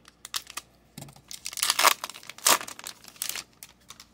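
Hockey card pack wrapper being torn open and crinkled by hand: a run of crinkling, tearing rustles, loudest in the middle.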